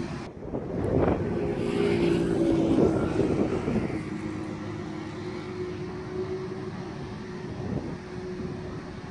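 Airbus A330-303 airliner's General Electric CF6 jet engines running at a steady whine as the aircraft moves slowly at the runway end. A louder rushing noise swells from about one to four seconds in, then eases.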